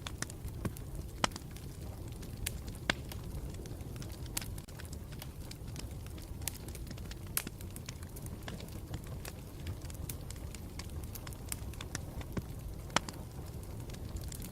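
Campfire burning steadily with a low rumble, crackling and popping at irregular moments, several sharp pops standing out above the rest.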